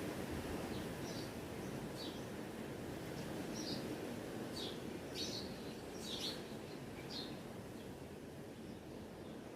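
Small birds chirping: short, high chirps every second or so, over a steady background hiss.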